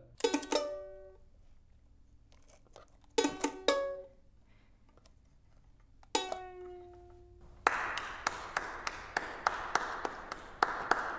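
A duct-taped ukulele strummed in single chords: one at the start, two close together at about three seconds, and one at about six seconds. Each chord is left to ring out. For the last few seconds there is a steady hiss with even clicks, about three a second.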